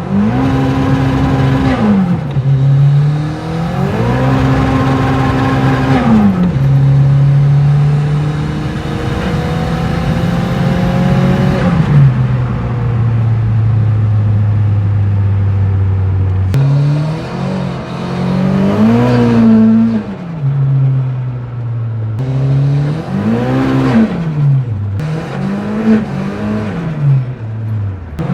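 Turbocharged 1989 VW Polo 86c 1.3-litre 8-valve four-cylinder engine and exhaust, revved twice to a high pitch that holds flat for a second or two. It then runs lower and steady for several seconds, followed by a series of quick rev blips that rise and fall.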